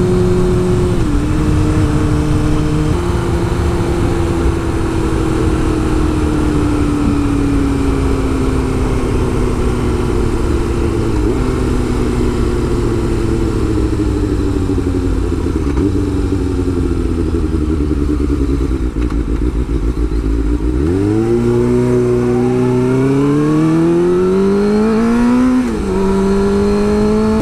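A 2005 Suzuki GSX-R600's inline-four engine, running through a shorty aftermarket exhaust and heard from the rider's helmet with wind noise on the microphone. The engine note falls slowly for most of the time as the bike rolls along. About 21 s in it climbs steeply under acceleration, with a short dip at a gear change a few seconds later before it climbs again.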